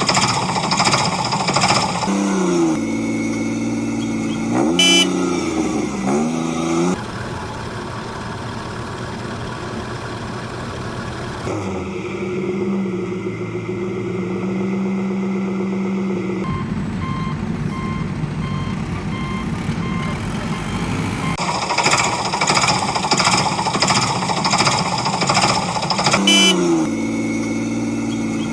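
Heavy-machine engine sounds, running steadily and revving up and down in several sections, with a rhythmic clatter at the start and again later. A reversing beeper beeps at an even pace for a few seconds past the middle.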